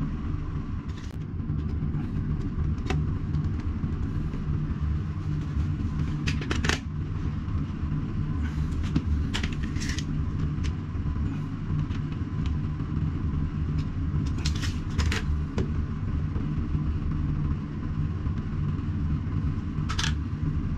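A steady low hum, with scattered short clicks and scrapes of parts and tools being handled, a few of them bunched close together.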